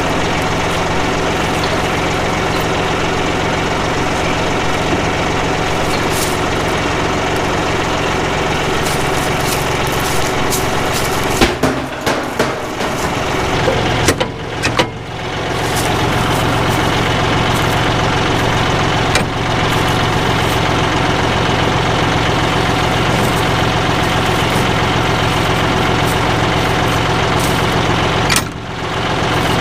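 John Deere 5055E tractor's diesel engine running steadily under load. There is a brief break with a few clunks about halfway through, after which the engine's low hum is stronger, and a short dip near the end.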